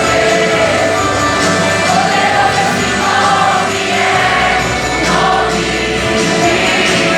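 Choir singing a Portuguese worship song with a band, long held sung notes over steady bass and percussion.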